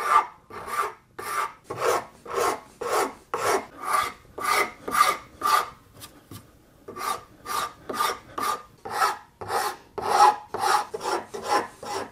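Hand rasp scraping across the end grain of a wooden plane body in steady back-and-forth strokes, about two a second, with a brief pause about six seconds in.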